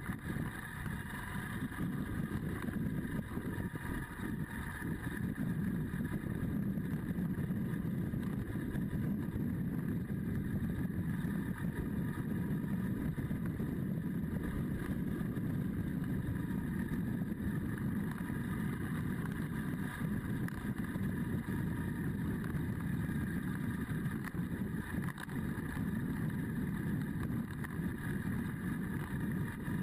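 Adventure motorcycle engine running steadily at road speed, mixed with wind noise on the bike-mounted microphone.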